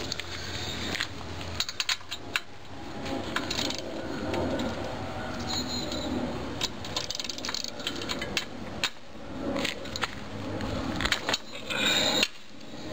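Scattered metal clicks and scraping of a wrench working the spark plug out of a small engine's cylinder head, to get ready for a compression test on the cold engine.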